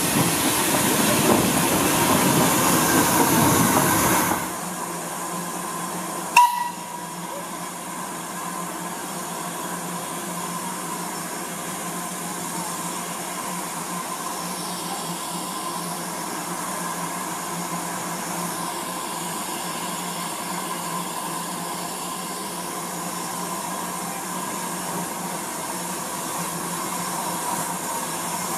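Steam train pulling away at close range, a loud dense rush of exhaust and running gear that cuts off abruptly about four seconds in. Then a standing steam locomotive hisses steam steadily, with one short sharp sound about six seconds in.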